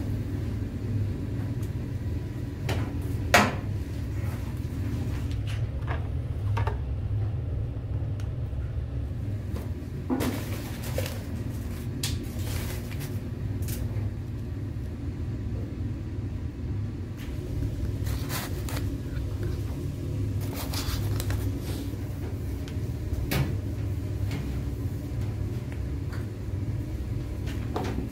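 Kitchen work sounds: a steady low hum under scattered clicks, knocks and brief clatters of utensils and containers being handled. The loudest is a sharp knock about three seconds in.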